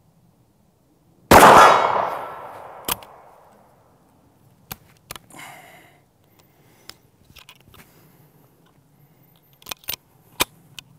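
A Greener GP single-shot 12-gauge Martini-action shotgun fires once about a second in, the blast trailing off over a couple of seconds. Scattered sharp clicks and a brief rattle follow as the action is worked and shells are handled.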